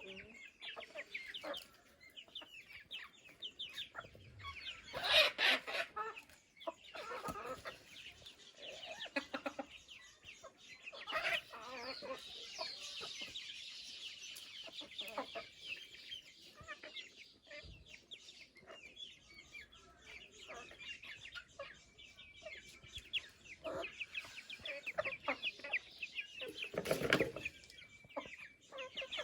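A flock of chickens clucking, many short calls overlapping, with two louder sounds standing out: one about five seconds in and one near the end.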